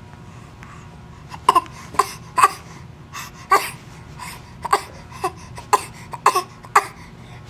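A person putting on a fake coughing fit: about a dozen short, forced coughs in quick succession, starting about a second and a half in.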